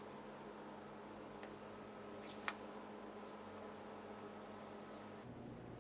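Faint knife work trimming a raw beef chuck roast, with small scrapes and one sharp click about two and a half seconds in, over a steady low hum.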